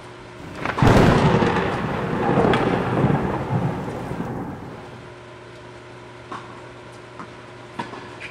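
A sudden loud rumble starts about a second in and dies away over roughly four seconds. Sharp knocks of tennis balls struck by rackets come before and after it during a doubles rally.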